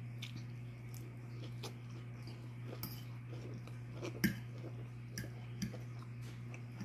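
Metal fork clinking and scraping against a bowl while picking up salad, with soft chewing between; the sharpest clink comes a little past four seconds in, with a few lighter ones after. A steady low hum runs underneath.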